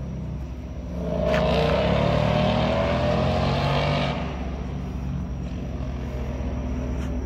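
Ford Mustang's Coyote 5.0 V8 accelerating hard about a second in, its pitch climbing for about three seconds, then easing back to a steady low rumble.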